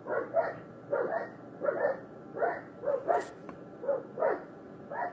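A dog barking over and over, the barks often coming in quick pairs, about a dozen in all.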